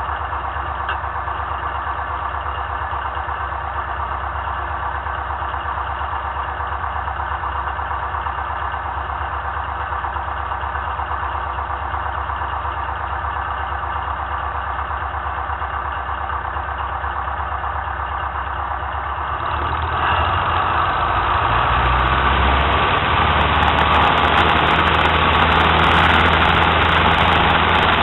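Citabria tow plane's piston engine idling steadily, then opened up about twenty seconds in and growing louder as the aerotow takeoff roll begins.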